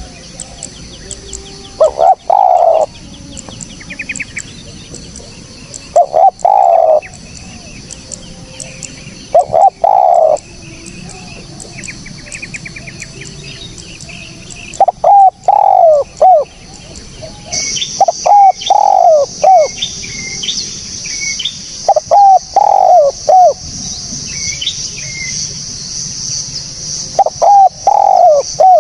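Spotted dove cooing: loud phrases of two to four coos repeated every few seconds, the later phrases longer. Small birds chirp faintly behind, and a steady high-pitched buzz joins about halfway through.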